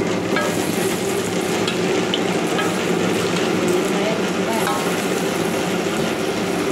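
Food frying in hot oil in a pan, a steady sizzle.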